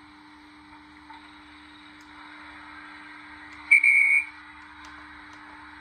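Model steam locomotive sound decoder (Locoman sound project for a Stanier 8F) playing through the tender's small speaker: the steady hiss of a standing steam engine, with one short, loud, high-pitched whistle blast about three and a half seconds in.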